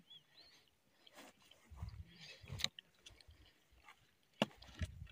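Footsteps crunching and thudding on stony mountain grass, faint, with heavier footfalls about two seconds in and again near the end.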